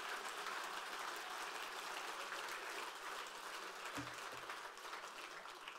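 Audience applauding in a large hall, dying away toward the end. A short low knock about four seconds in as a beer glass is set down on the lectern.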